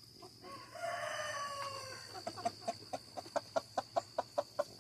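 A rooster crows once, a long call that drops in pitch at the end, followed by a rapid, even run of chicken clucks at about five a second.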